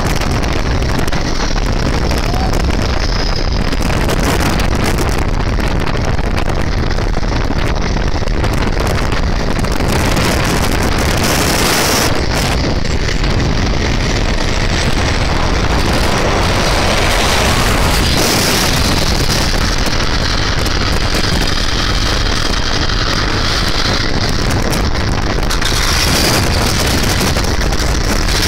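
Motorcycle riding along a road, its engine noise mixed with a steady rush of wind on the microphone.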